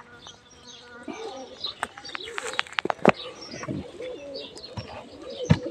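Domestic pigeons cooing, the coos growing denser in the second half, with a few sharp clicks.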